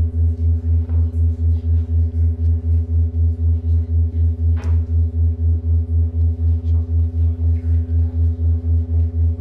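Live-coded electronic music: a deep synthesized bass tone pulsing evenly about four to five times a second under a steady chord of higher held tones. A single sharp click comes about halfway through.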